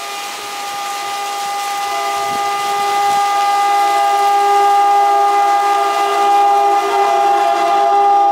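WAP4E electric locomotive's air horn sounding in one long, unbroken blast, growing steadily louder as the train approaches at speed, over the hiss of heavy rain.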